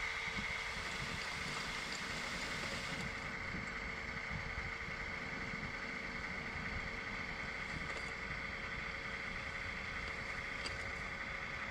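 Steady motor whine from the RC dump trailer's tipping mechanism as the bed holds raised and dirt slides out, with wind rumbling on the microphone.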